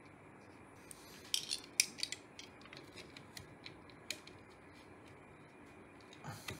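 Light clicks and taps of small hard plastic and metal parts being handled, a quick irregular run of sharp clicks over the first few seconds, then a single duller knock near the end.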